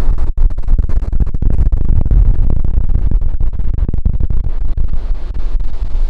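Strong wind buffeting a compact camera's built-in microphone, a loud rumbling, crackling noise that chops in and out many times a second and mostly buries the surf behind it.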